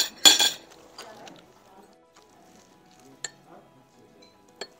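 A spoon clinking against a soup bowl: one loud ringing clink just after the start, then a couple of lighter clinks later on.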